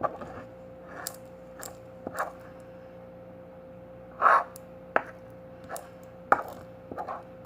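A utensil clicking and scraping against a bowl as slime is stirred, in irregular strokes about once a second, with one longer, louder scrape about four seconds in.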